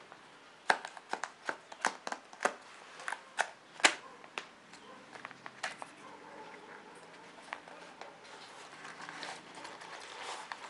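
A small cardboard box being opened by hand: a quick run of sharp crackles and snaps as the card flap is prised and torn, then softer rustling and scraping of card and paper.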